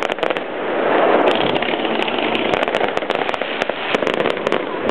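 Fireworks crackling and banging: a dense run of many quick pops and cracks that never lets up.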